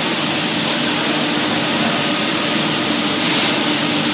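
Large fuel-fired rotary furnace melting bell bronze, running with a steady, even rushing noise and a low steady hum underneath.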